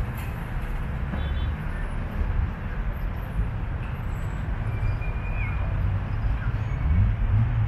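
City street ambience: a continuous low rumble of road traffic.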